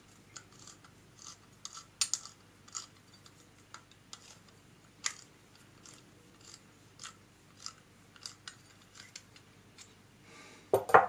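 Small metallic clicks and ticks of a Record Power SC2 woodturning chuck's steel jaws and screws being handled and fitted, at irregular intervals, with a louder clatter of metal parts near the end.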